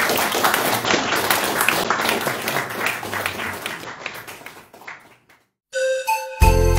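Audience applauding, the clapping dying away about five seconds in. Music with a steady tune starts near the end.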